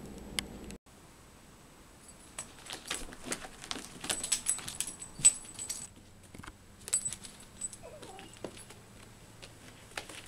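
Metal ring and tag on a kitten's collar jingling and clinking in quick, irregular bursts as it plays, mixed with light scratching and tapping against a cardboard scratcher.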